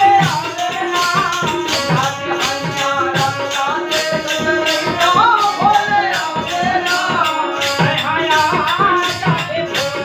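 Devotional bhajan group singing to harmonium, a pair of hand drums and hand-held clappers. The voices slide and bend over the harmonium's steady chords, and the drum and clappers keep a regular beat.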